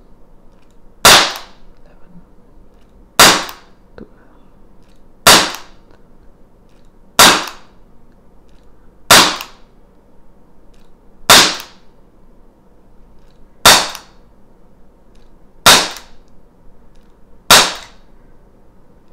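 CZ 75 P-07 Duty CO2 BB blowback pistol firing single shots in slow, steady succession: nine sharp cracks about two seconds apart. Each shot carries the snap of the blowback slide cycling.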